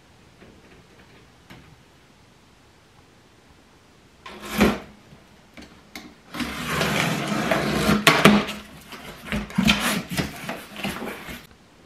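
Cardboard shipping box being opened. After a single thump, a box cutter slits the packing tape with a long scraping rip, then the cardboard flaps are pulled open with rustling, rubbing and sharp knocks.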